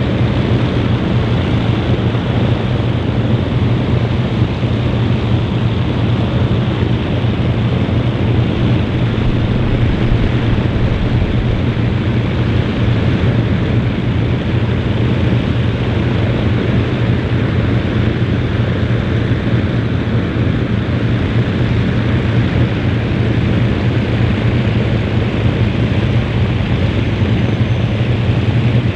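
Four Rolls-Royce Merlin V12 engines of an Avro Lancaster bomber running together on the ground during a taxi run: a loud, steady, deep drone with no change in throttle.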